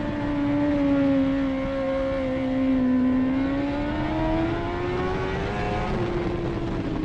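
Dirt-track race car engine running hard on the dirt oval, heard from inside the cockpit with road and wind noise underneath. Its note stays nearly steady, climbs slowly, then drops a little about six seconds in.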